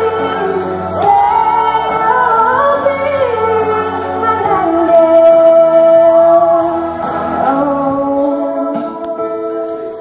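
Solo female voice singing into a microphone over musical accompaniment: a sliding melodic run, then one long held high note about halfway through. Near the end the voice stops and the accompaniment's sustained chords carry on.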